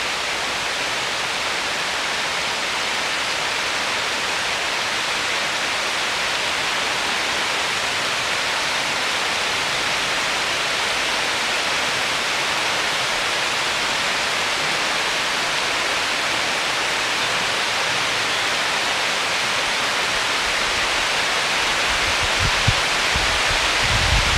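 Heavy downpour: a steady, even hiss of rain falling on woodland, slowly growing louder. Near the end, gusts of wind start to buffet the microphone with low rumbles.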